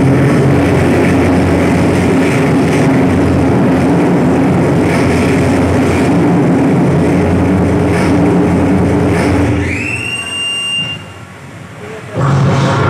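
A recorded sound-effect track played through the hall's loudspeakers for a mime act: a loud, steady mechanical rumble. About ten seconds in, a whistle rises in pitch and holds briefly, then the sound drops for a moment before the rumble comes back.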